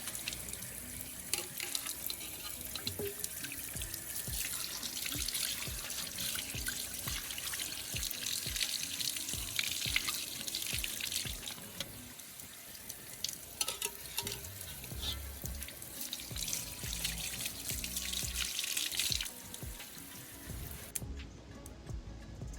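Running water splashing and pouring, with scattered low knocks, that stops abruptly a few seconds before the end.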